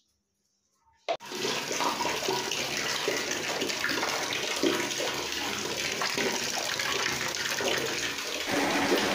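Water pouring and splashing over a Labrador puppy on a tiled bathroom floor during her bath, a steady rush that starts abruptly about a second in.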